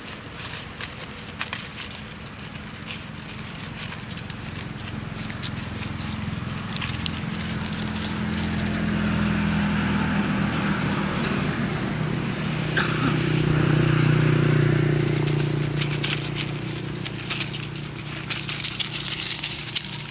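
Low engine hum of a passing vehicle that builds up over several seconds, is loudest about two-thirds of the way through, then fades. Dry leaf litter crackles and rustles under the macaques throughout.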